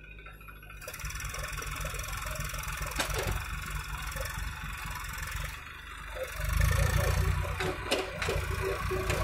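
Diesel engines of a farm tractor hauling a loaded soil trolley away and a JCB 3DX backhoe loader digging. The engine noise comes in about a second in with a fast low chugging and grows louder from about six seconds.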